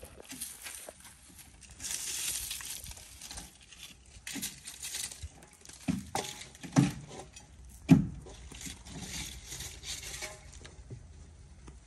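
Dry palm fronds rustling and scraping over gravel, with a few short dull thumps, the loudest about eight seconds in.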